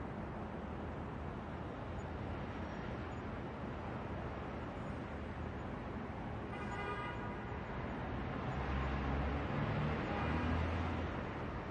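City street traffic: steady road noise, with a passing vehicle's low rumble swelling in the last few seconds and a short pitched tone about seven seconds in.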